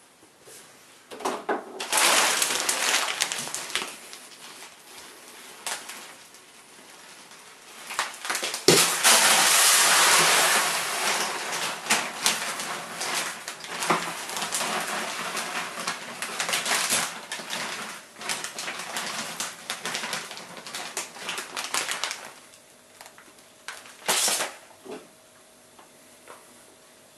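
Milled pale malt being scooped out of a plastic bag and poured into a plastic bucket: grain hissing and rattling, with the bag crinkling. It comes in bursts, a short one about two seconds in and a long one from about eight to twenty-two seconds in, with a brief pour near the end.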